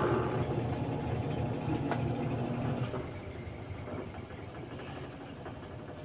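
LG fully automatic top-load washing machine spinning its tub fast near the end of a tub-clean cycle, with a steady motor hum. The sound drops somewhat about three seconds in.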